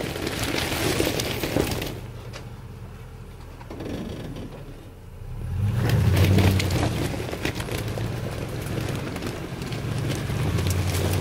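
Dodge Ram 2500's Hemi V8 crawling over loose rock, tires crunching and popping on gravel and stones. About six seconds in the engine pulls harder with a deep, steady note as the truck climbs.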